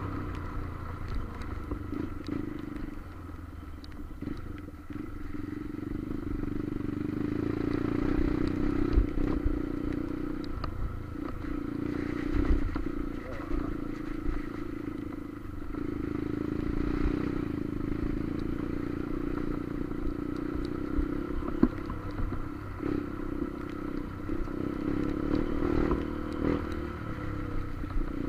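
Motorcycle engine running steadily while riding on a road, swelling and easing with the throttle, with scattered knocks and rattles from bumps and a low rumble of wind and road.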